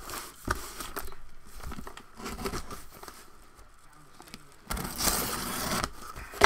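Cardboard shipping box being opened by hand: scattered scrapes and clicks as the packing tape is cut and worked loose, then a loud tearing rip of about a second, about five seconds in, as the tape and flaps are torn open.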